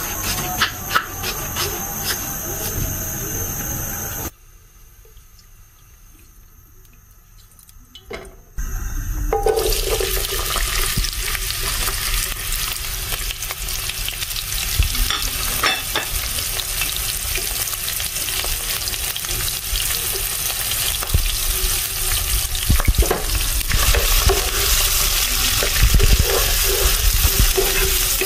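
Chopped red onion sizzling in hot oil in a non-stick frying pan, starting about eight seconds in after a short quiet stretch, with a spatula stirring and knocking against the pan. Before the quiet stretch come a few sharp taps over a steady high hum.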